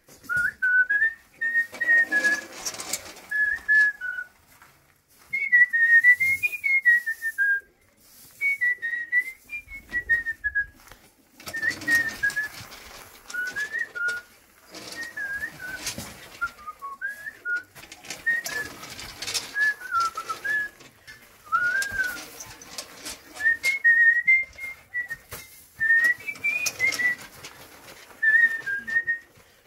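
A person whistling a tune, a series of short melodic phrases with pauses between them, mixed with short, irregular noises.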